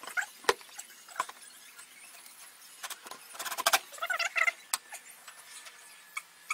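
A wooden door being lifted and fitted back onto its hinges: scattered light knocks and clicks, with a burst of small squeaking and rattling about three and a half seconds in.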